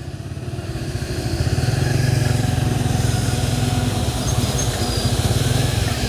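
A motor vehicle engine running with a low, rapid, even pulse. It grows louder over the first two seconds, then holds steady.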